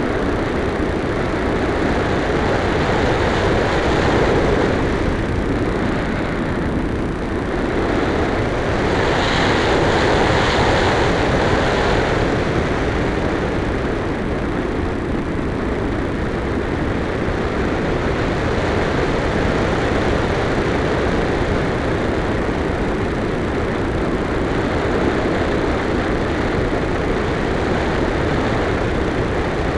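Wind rushing over the onboard camera of an electric RC glider in flight: a steady, loud rush that swells twice, briefly near the start and for a few seconds in the middle.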